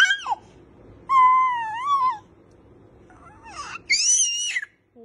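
A baby's happy high-pitched vocalizing: a short rising squeal at the start, a wavering coo about a second in, and a very high squeal of delight near the end.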